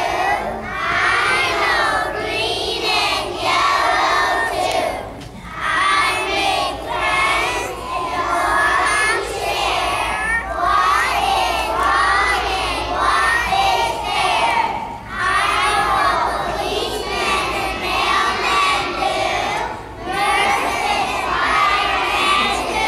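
A group of preschool children singing a song together, phrase after phrase, with short breaks between lines.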